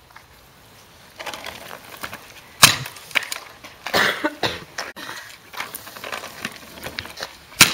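Metal kick scooter on asphalt: its wheels rolling, with several sharp clacks as the deck and wheels hit the ground on landing from hops. The loudest clack comes about two and a half seconds in.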